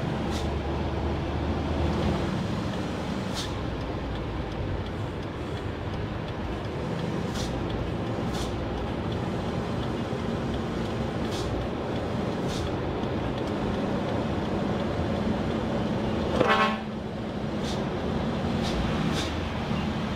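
Inside the cab of an Isuzu Giga FVZ 285PS truck on the move: the diesel engine running steadily with road noise. About three-quarters of the way through, a short horn toot sounds once.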